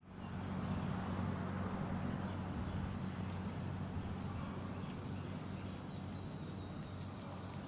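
Outdoor ambience: insects chirping in a fast, even pulse, high-pitched, over a steady low hum.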